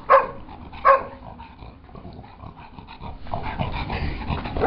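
A dog giving two short, sharp barks close together near the start, followed by quieter play noises.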